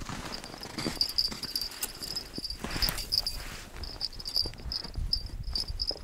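Snow crunching and light knocks as a winter tip-up is handled at an ice hole, with a high, thin chirping tone that comes and goes throughout.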